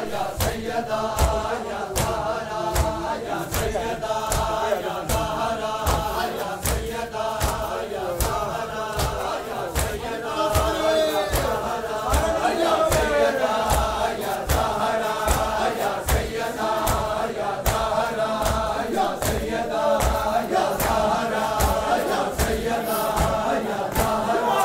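A crowd of men chanting a nauha (Shia lament) together, led by a party of reciters, over a steady rhythm of sharp slaps from hands beating on chests in matam.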